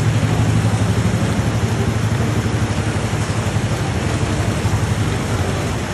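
Heavy rain pouring down, with a vehicle engine running under it in a low, fast pulse.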